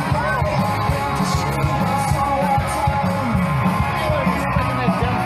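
Live rock band playing with a singer.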